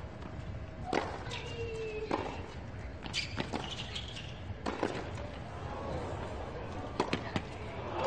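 Tennis ball being hit back and forth on a hard court: a series of sharp racket strikes and ball bounces, irregularly spaced, over a steady low stadium background.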